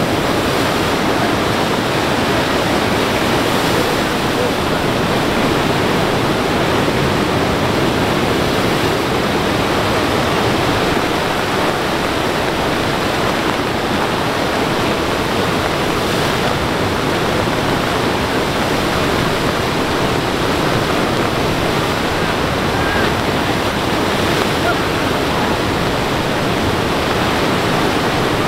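Flooded river water rushing out across a beach into the ocean, a loud, steady roar of churning brown standing waves.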